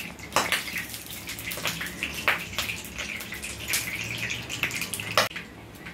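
Hot oil sizzling and crackling in a pan as foil-wrapped chicken kababs go in to fry, with a few louder pops.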